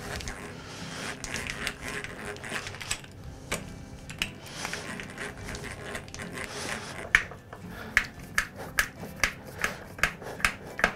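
A drill boring a pilot hole into the wooden bench top through a countersunk hole in a metal mounting plate, an uneven rasping noise. About seven seconds in it gives way to a screw being driven in by hand with a screwdriver, with sharp clicks two or three times a second.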